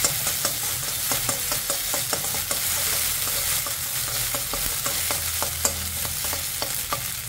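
Spatula scraping and tapping around a metal kadhai in quick, repeated strokes as a ground mustard seed, green chilli, ginger and garlic paste is stirred and fried in mustard oil, over a steady sizzle.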